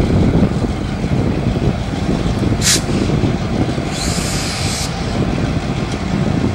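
Reading & Northern diesel locomotive rumbling steadily as it moves slowly, pulling boxcars. Two hisses of air from its brakes: a short sharp one about two and a half seconds in, and a longer one of about a second just after four seconds.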